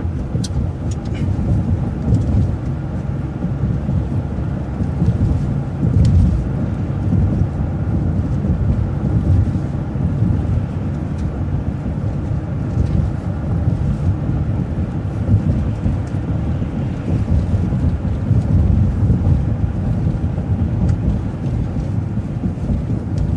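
Steady low rumble of a city transit bus's engine and tyres while it drives, heard from on board, with a few light clicks or rattles.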